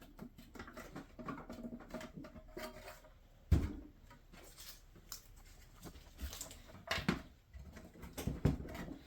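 Small clicks and taps of 3D-printed plastic parts and M5 steel hex nuts being handled and pushed into place, with one sharper knock about three and a half seconds in and a few more near the end.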